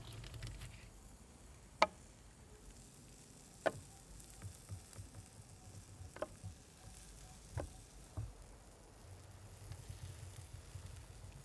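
Slices of cheese set down with a knife onto caul fat on a wooden board: a few sharp clicks and taps over soft handling sounds, the loudest about two seconds in and another near four seconds.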